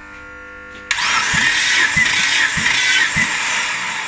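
Mitsubishi 6G74 3.5-litre V6 being cranked over on its starter motor for a compression test of the third cylinder. It starts abruptly about a second in as a loud whirring, with a low thump about every 0.6 s, and begins to die away near the end.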